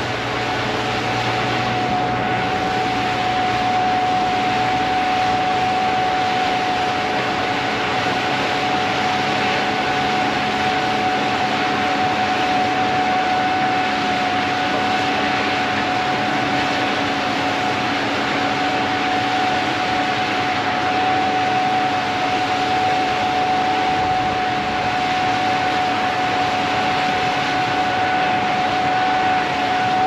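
Gleaner S77 combine harvesting corn: a steady machine drone with a constant high whine over it.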